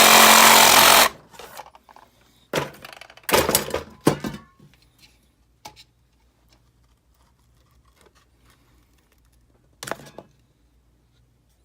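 Power tool cutting through a refrigerator water filter's housing stops about a second in. A few knocks and clatters follow as the cut-open filter pieces are handled, one last knock near the end.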